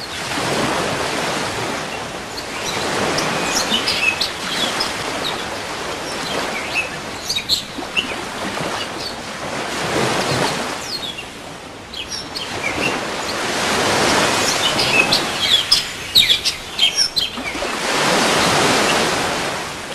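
Waves washing ashore, swelling and falling away every few seconds, with small birds chirping over them, most busily in two spells about three and fifteen seconds in.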